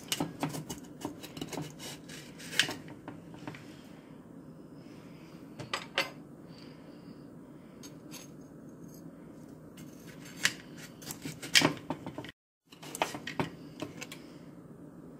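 Metal tablespoon and butter knife clinking and scraping against a glass sugar canister as spoonfuls of sugar are scooped and levelled off, in scattered light knocks with a few sharper clinks, over a steady low hum.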